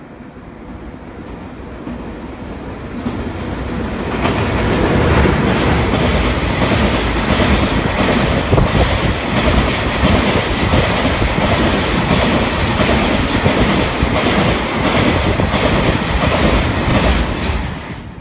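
JR freight train passing through a station: the noise builds over the first four seconds as it approaches, then a loud steady rumble of wagons going by, with a dense clatter of wheels over rail joints.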